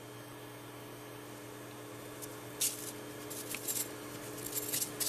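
Laboratory mice scrabbling and rustling in a cage with a soaked nest: over a steady low hum, a run of short, sharp, irregular scratching crackles starts about halfway in.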